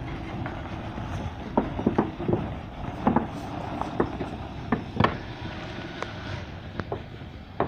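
Bus's diesel engine rumbling as it pulls away and recedes, growing fainter near the end. Scattered sharp clicks and knocks come over the rumble.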